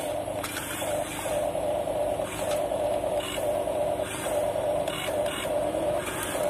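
Huina 1550 RC excavator's small electric gear motors whining as the cab slews and the boom moves, starting and stopping in a string of short bursts over a steady low hum.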